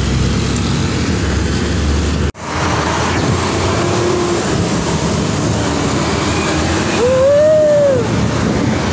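Road traffic noise heard while cycling: a steady loud rumble of vehicles, cut off for an instant about two seconds in. Near the end a tone rises and falls over about a second.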